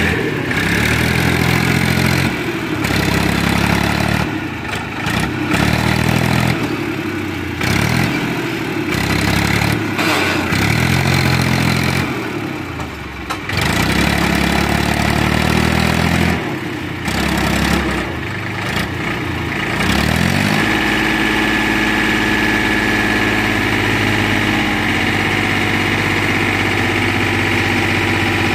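Powertrac tractor's diesel engine revving up and dropping back again and again as it hauls a heavily loaded trolley. About two-thirds of the way through it settles at steady high revs with a thin high whine, as the hydraulic lift tips the trolley to dump the load.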